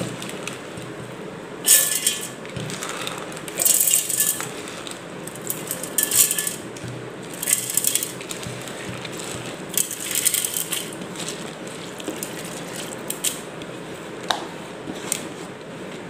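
Soaked rice and green gram tipped by hand from a plastic bowl into a stainless-steel mixer-grinder jar, the wet grains falling onto the steel in a series of short spurts. A couple of sharp clicks come near the end.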